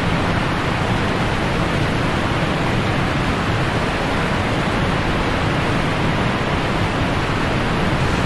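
River water rushing over rocks in shallow rapids, a steady loud rush.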